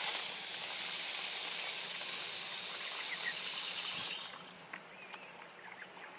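Garden hose spray nozzle spraying water into a plastic fly trap through its funnel, filling the jar with the bait solution. The spray is steady and cuts off about four seconds in.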